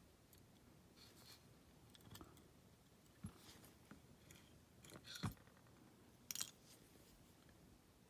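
Faint, scattered small clicks and taps of steel tweezers handling tiny lock pins and springs against a brass lock cylinder and a wooden pin tray, with the sharpest clicks a little past five seconds and again just after six.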